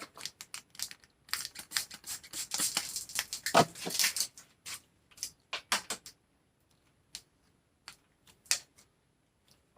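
Cleaner squirted under an old bicycle handlebar grip in several short hissing sprays, among many quick clicks and taps of handling, to wet the grip so it will slide off. After the first few seconds only a few scattered clicks remain.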